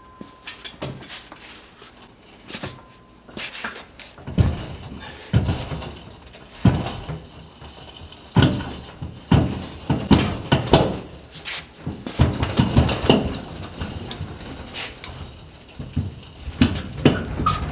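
Irregular clunks, knocks and scrapes of heavy metal shop machinery being shifted by hand with an engine hoist and a pry bar.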